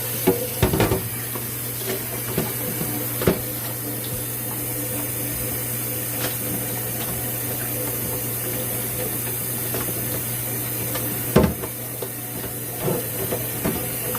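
Water running steadily from a kitchen faucet, with a few knocks of items being handled.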